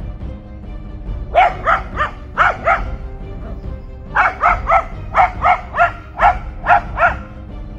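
A dog barking at a snake in the water, in two quick volleys: five barks, a pause of over a second, then nine more. Background music runs underneath.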